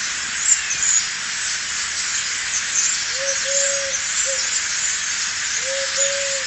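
A bird gives soft, low three-note coos, a short note, a longer note, then a short one, twice over. A steady hiss runs underneath.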